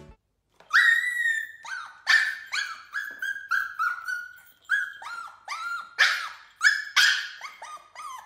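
A frightened puppy crying: a run of short, high-pitched whimpering yelps, about two a second, starting just under a second in.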